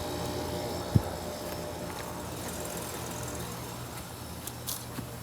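Outdoor heat pump unit running with a steady, even hum, and a single sharp click about a second in. The unit is judged as not sounding good.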